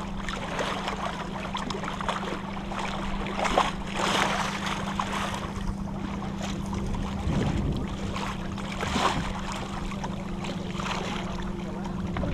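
Wind buffeting the action-camera microphone and water washing along the hull of a small sailboat under sail, rising and falling in uneven gusts with a few brief crackles. A steady low hum sits underneath.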